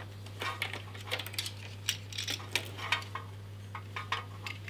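Irregular small clicks, taps and rustles of hands handling plastic and metal parts and tape inside an open PC case, over a steady low hum.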